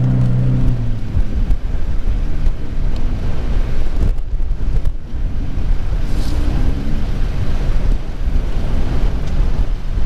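A 4x4's engine running inside the cab for about the first second, then strong wind buffeting the microphone, with an engine faintly heard a little past the middle.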